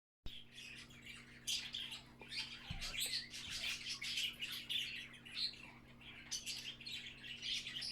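A bird chirping over and over in short, high-pitched calls, over a steady low electrical hum.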